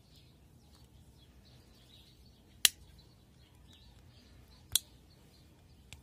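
Tools of a Victorinox Ranger Swiss Army knife snapping into place: two sharp metallic clicks about two seconds apart, and a faint third near the end. Small birds chirp in the background throughout.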